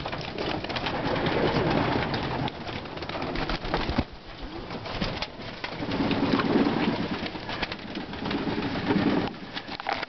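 Young racing homer pigeons cooing in stretches while they splash in a shallow water bath, with many sharp splashes and flicks of water throughout.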